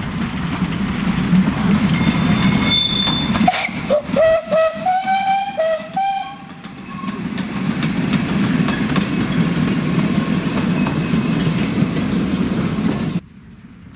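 Narrow-gauge steam train passing close by: the steady rumble and rattle of the locomotive and its wagons on the rails, broken in the middle by a string of short, wavering high-pitched squeals. The sound cuts off suddenly near the end.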